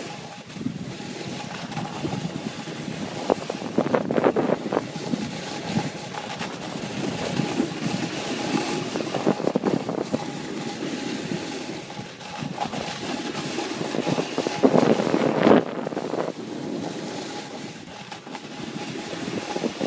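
Wind rushing over the microphone while riding downhill, with the hiss and scrape of edges sliding over packed snow, swelling louder about 4 seconds in and again around 15 seconds.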